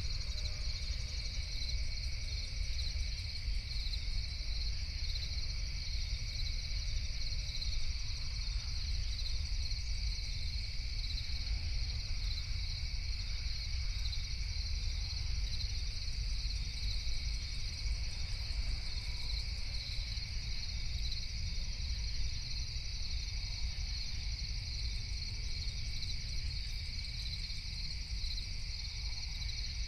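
Night insect chorus of crickets trilling steadily and without a break, in two high bands, over a steady low rumble.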